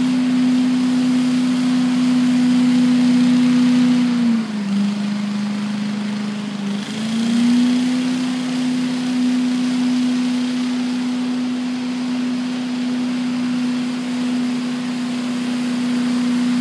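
Walk-behind leaf blower's engine running steadily at a high, even pitch. About four seconds in the pitch drops a little for a couple of seconds, then rises back to its earlier speed.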